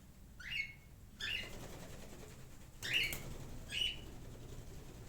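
A bird chirping four times, each a short call that sweeps up and then holds briefly, over the faint sizzle of onions softening in hot oil.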